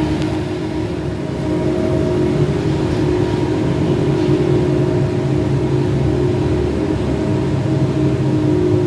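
Steady rumble and hum of a moving vehicle, heard from inside its cabin, with a few steady low droning tones and no clear changes.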